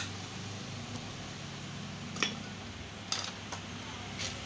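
Four sharp metal clicks and clinks in the second half, from the steel centre stand and its return spring being worked into place on a motorcycle, over a steady low hum.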